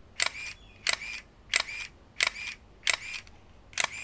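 Canon EOS 500N film SLR firing its shutter six times in quick succession, with its back open. Each firing is a sharp shutter click followed by a short whir of the built-in motor recocking the shutter.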